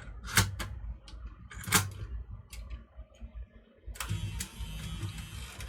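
Sharp plastic clicks and clacks from a Sony CCD-TRV16 8mm camcorder's cassette compartment as a tape is put in again. About four seconds in, a steady mechanical whirr starts up, the tape-loading mechanism.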